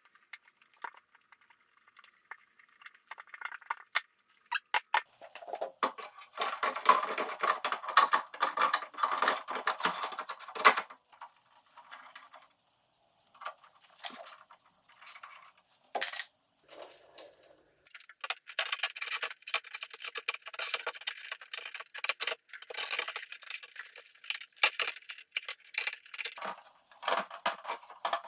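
Hands fitting a rubber filler piece and weather stripping into the metal window channel of a 240Z door: rubbing and scraping with many small metallic clicks and clinks.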